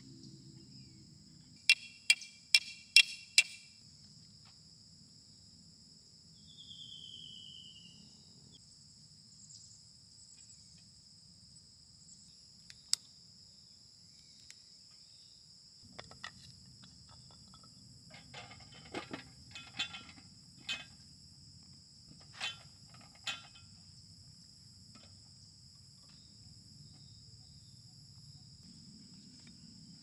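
Steady high insect chorus, with metal camp gear being handled on a steel wire rack. Five sharp, ringing metallic clinks come about two seconds in, and a run of lighter clinks and knocks of cookware comes later, around 18 to 23 seconds.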